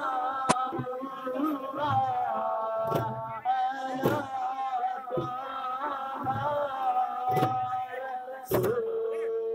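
Music: a male voice singing a flowing melody over a slow drum beat of about one stroke a second.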